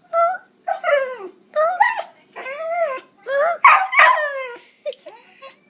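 A dog howling in a run of short, wavering howls, each bending up and down in pitch, the loudest and fullest about four seconds in.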